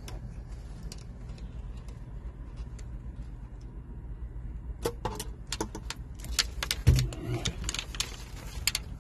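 Small metal clicks and clinks of pliers working a nut tight on a wire terminal post. The clicks grow busier in the second half, with one louder knock near the end.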